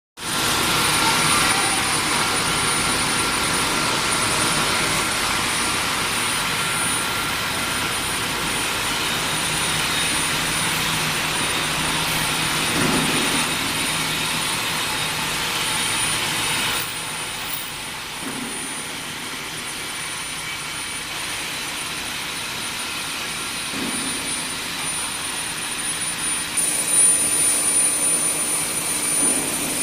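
Induction forging furnace line running: a steady loud industrial noise with a thin high whine over it, dropping somewhat in level about halfway through, with a dull knock every five or six seconds.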